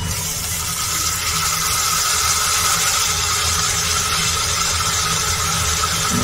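Cut squid sizzling as it is added to browned onions in a hot steel pan, a steady hiss over a constant low hum.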